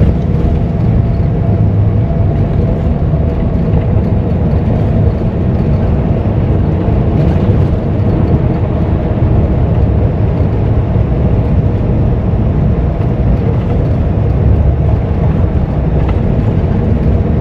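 Steady drone of a Peterbilt 579 semi-truck's diesel engine and road noise, heard inside the cab while cruising at highway speed.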